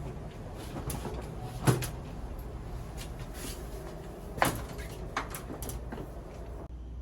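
Two sharp clunks about three seconds apart, with a few lighter knocks after the second, over a low steady hum.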